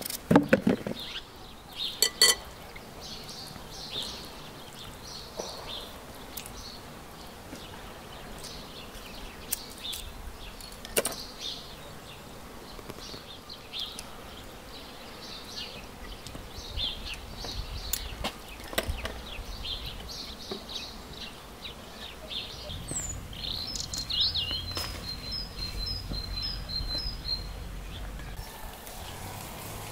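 Small birds chirping and calling, with a quick run of short repeated notes near the end. A few sharp clicks and knocks, loudest in the first couple of seconds, from a small knife peeling and cutting potatoes.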